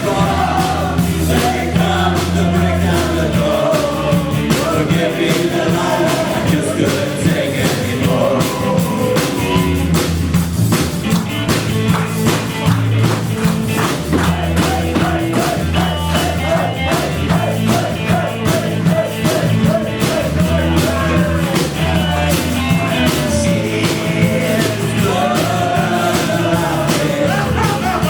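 A live rock band playing with a singer, bass and drums keeping a steady beat.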